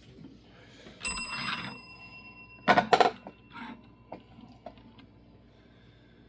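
Service bell, its top broken off, struck once about a second in and ringing as it fades; about two seconds later it is hit again in a quick run of loud metallic clanks and rattles.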